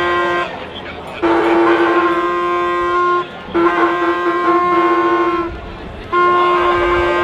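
A horn blown in long, loud blasts of about two seconds each with short gaps between, each blast a single steady note.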